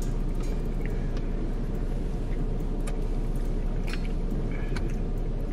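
Steady low rumble with a few faint short clicks.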